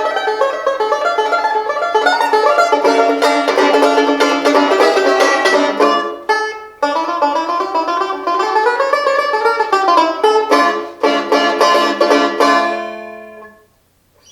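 1933 Super Paramount Artist Supreme tenor banjo playing a lively tune of quick plucked notes. The notes break off briefly about six and a half seconds in, then the tune resumes and ends on a final chord that rings and fades away.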